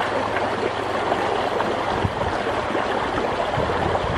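Swift, rain-swollen stream current flowing steadily through a stone-arched culvert.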